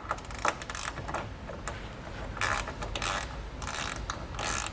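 Hand ratchet wrench backing out a factory body bolt, its pawl clicking in several short runs as the handle swings back and forth.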